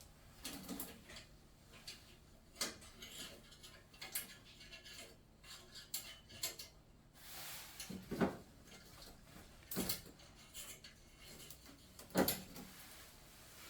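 Light clicks and small metal knocks of furnace parts being handled while the flame sensor is pulled out, with two louder knocks about eight and twelve seconds in.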